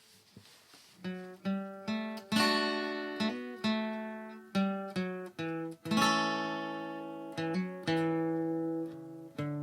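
Background acoustic guitar music: plucked and strummed notes that start sharply and ring out, fading in softly with the playing coming in about a second in.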